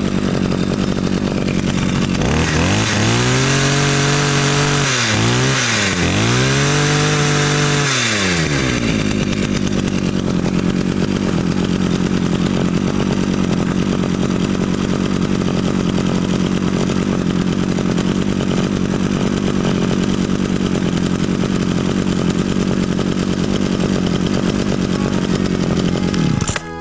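A restored 1996 McCulloch Power Mac 32 cc two-stroke chainsaw running after a cold start. It is revved up three times in quick succession from about two seconds in, then settles back to a steady idle.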